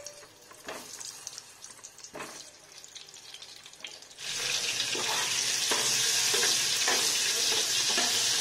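A few faint taps and clicks, then about four seconds in a loud sizzle of food frying in hot oil starts suddenly and holds steady.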